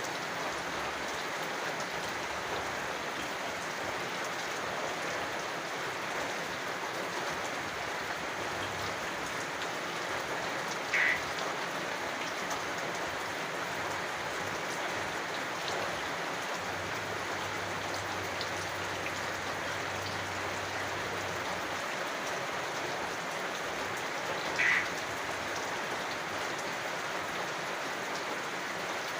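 Steady rain falling, with a single short frog call twice, about fourteen seconds apart, standing out above the rain.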